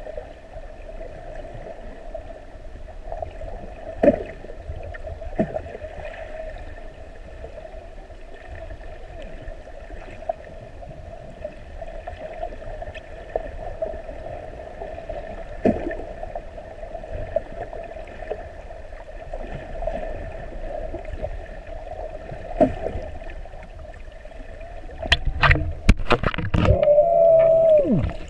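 Muffled underwater sound through an action camera's waterproof housing: a steady hum with a few short knocks, then loud splashing and bubbling near the end as the snorkeler comes up at the surface.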